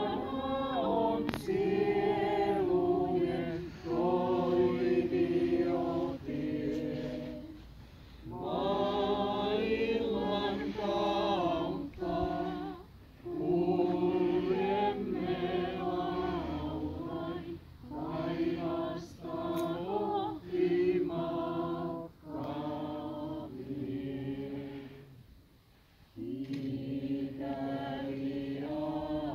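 Group of mourners singing together without accompaniment, in slow held phrases with short breaks between them.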